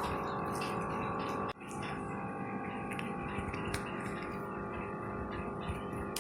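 Soft instrumental background music with sustained notes, briefly cut off about one and a half seconds in, with a few faint light clicks over it.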